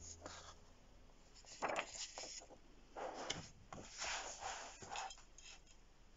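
Paper colouring magazine being handled: its pages turned and closed, then a hand brushing across the cover. A few short, soft rustles and rubs, the loudest about two and four seconds in.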